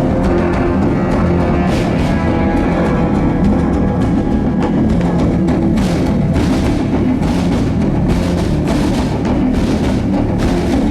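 A drum troupe playing a loud, driving rhythm on drums, with sharp accented strokes coming more often from about six seconds in.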